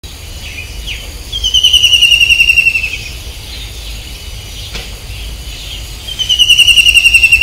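A bird calling twice, each call a rapid trill of about ten notes a second, falling slightly in pitch and lasting about a second and a half, over a steady background hiss.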